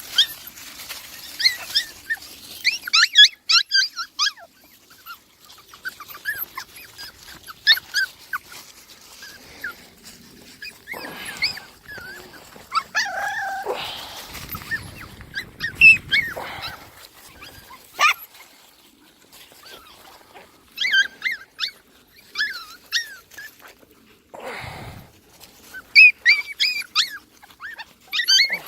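Puppies squeaking and whimpering: many short, high-pitched cries in clusters, with a stretch of lower shuffling noise in the middle.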